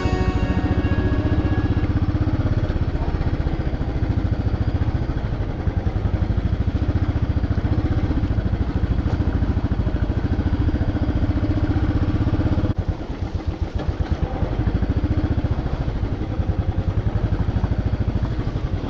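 Royal Enfield Standard 500's single-cylinder engine running under way, a fast steady thumping pulse. About two-thirds through it drops off briefly, as when the throttle is eased, then picks back up.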